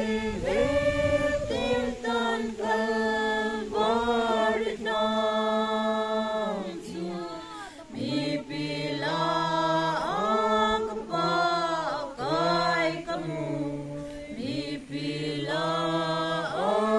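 A congregation singing a hymn unaccompanied, in slow, long-held notes.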